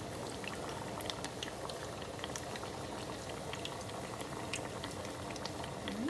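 Beer-battered vegetable slices deep-frying in hot oil in a small pot: a steady sizzle with frequent sharp crackles and pops.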